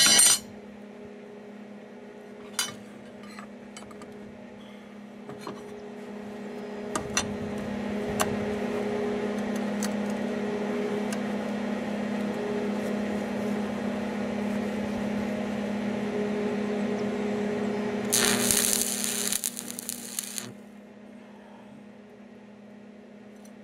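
Stick welding a bolt onto 1/4-inch steel plate: a steady low hum from the welding machine, a few sharp metal taps, then the arc crackling from about seven seconds in. The crackle is loudest and hissiest for a couple of seconds near the end, then stops.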